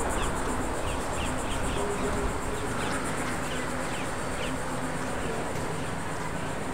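Insects trilling in a steady, evenly pulsing high buzz, with short high chirps scattered through it, over a constant background rumble.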